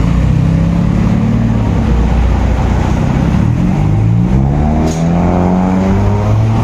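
Honda Civic's exhaust through a newly fitted dual-tip oval chambered muffler as the car pulls away: a steady engine note that climbs in pitch from about halfway through as it accelerates.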